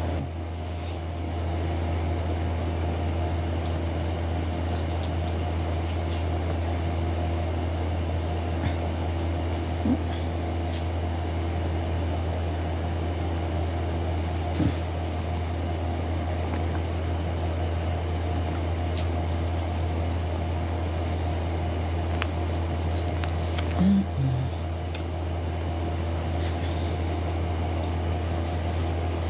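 A steady low hum runs on evenly, with a few soft ticks and crinkles from handling sheets of plastic nail stickers.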